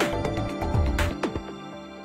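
Background music fading out; its bass drops away about halfway through and the rest grows quieter.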